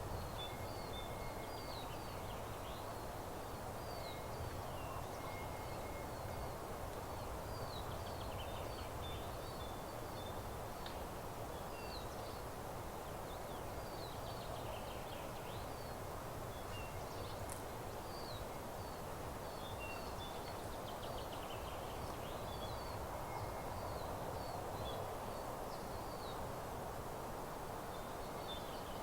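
Small songbirds chirping and twittering, many short high calls scattered throughout, over a steady low background hiss.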